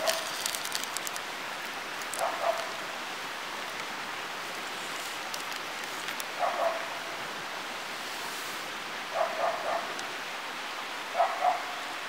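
A dog barking in short groups of one to three barks every few seconds, over a steady hiss.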